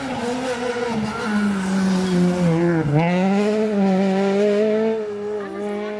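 Rally car's engine running hard as the car approaches and passes. Its engine note dips sharply about halfway through, then climbs again and holds as the car pulls away.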